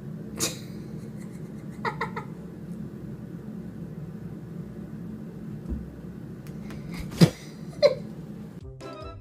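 A cat meowing in short calls, once about two seconds in and twice close together near the end, over a steady low hum.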